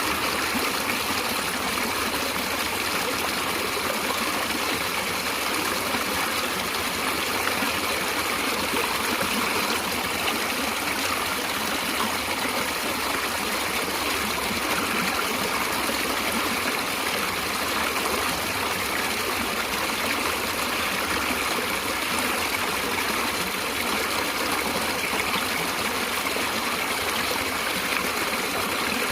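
Water of a natural stream flowing steadily, an even rushing with no breaks.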